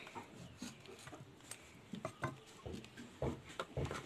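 Faint, scattered knocks and scraping of a large knife working through raw chicken on a wooden chopping block.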